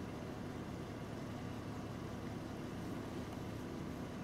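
A vehicle engine idling steadily: an even, low hum with a few steady tones and no change in pitch or level.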